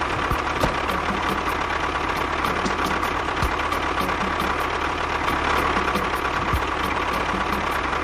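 Tractor engine running steadily at idle, a rhythmic knocking chug under a steady high whine.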